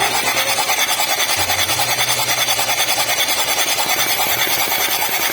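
Chevrolet Captiva diesel engine turning over on its starter motor in a fast, even pulsing rhythm without catching. The injectors and fuel system have just been serviced and refitted.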